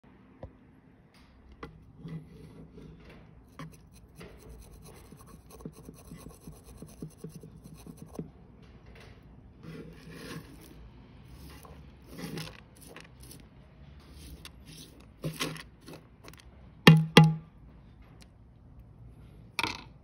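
Scraping and rustling noises with scattered small clicks, and two louder knocks in quick succession about three quarters of the way through, with another near the end.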